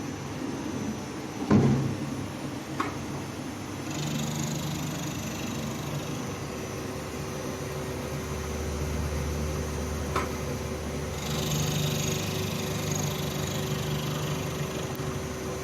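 CNC lathe running through a facing cut: a steady machine hum, a sharp knock about a second and a half in, and a few lighter clicks. A hissing, grinding cutting noise joins the hum about four seconds in and grows louder about eleven seconds in.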